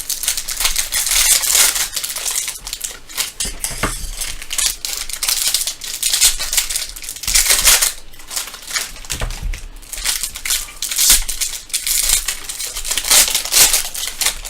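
Plastic foil trading-card pack wrappers being torn open and crumpled by hand, in repeated crinkling bursts.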